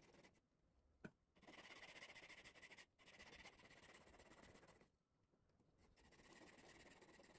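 Near silence: faint room tone, with one soft click about a second in.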